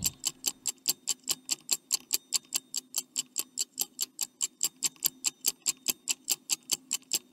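Stopwatch ticking sound effect: an even run of quick ticks, about six a second, counting down the time allowed to answer.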